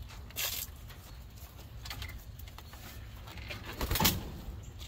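Backyard hens scrambling after tipped-out Japanese beetles, with a short noisy burst of a hen flapping its wings about four seconds in.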